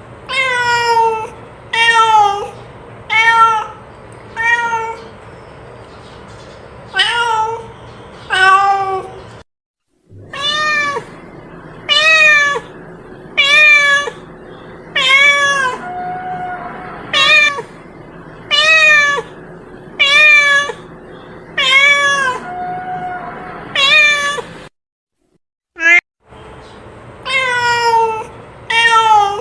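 A cat meowing over and over, about twenty short calls roughly one a second, each rising then falling in pitch. The calling breaks off for a moment twice.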